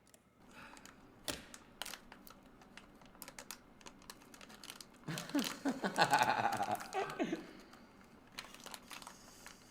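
Scattered sharp clicks and taps with some crinkling, and a short stretch of a strained, voice-like sound about five seconds in.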